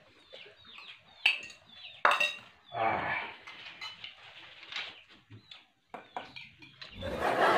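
China plates and cutlery clinking and knocking as a meal is eaten and dishes are set down on the floor mat. Small birds chirp in quick, repeated falling notes behind it, and a louder rush of noise comes in near the end.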